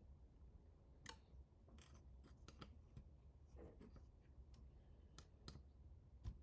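Faint, irregular clicks and light scrapes of small printer parts and hardware being handled, about ten in all, over a low steady hum.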